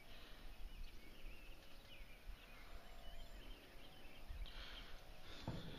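Faint outdoor ambience with scattered, quiet bird chirps and a low rumble underneath.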